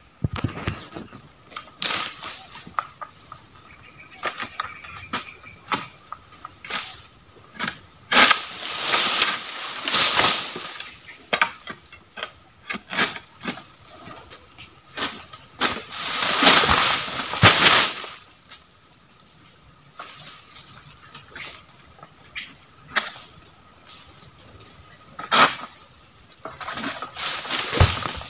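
Steady, high-pitched drone of insects in the plantation, with a few louder bursts of rustling noise about a third and two thirds of the way in, and a single sharp click near the end.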